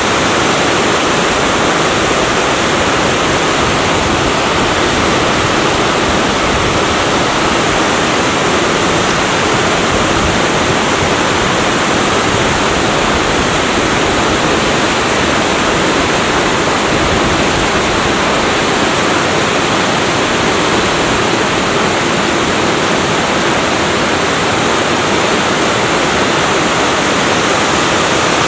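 Natural waterfall about 5 m high pouring over a rock face into a deep plunge pool: a steady, loud rush of falling water.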